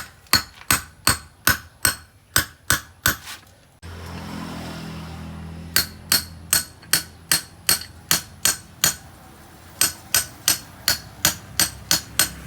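Hammer striking metal during a brake job, sharp ringing blows at about three a second in three runs with short pauses between.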